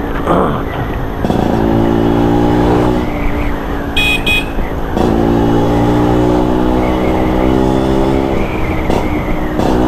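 Vintage Vespa's two-stroke engine through a KY26 Racing short right-side racing exhaust, pulling hard under acceleration twice, rising a little in pitch on each pull and easing off between them. A short high beep comes about four seconds in.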